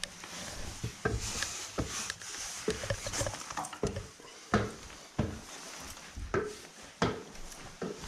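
Footsteps climbing the wooden stairs of a church bell tower: a series of uneven knocks and thumps on wood, roughly one a second.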